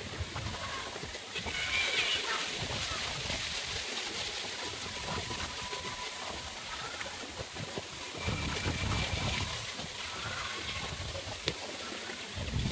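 Water splashing and sloshing in irregular stretches, louder about two seconds in and again near the end.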